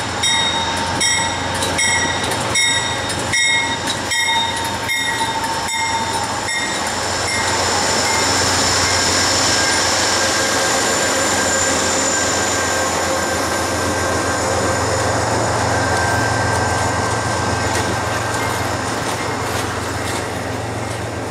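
Amtrak passenger train led by GE P42DC diesel locomotives passing close by. For the first several seconds a bell rings in steady strokes, a little under twice a second. Then the locomotive engine and the steady rumble of the double-deck Superliner cars' wheels take over, with a faint wheel squeal.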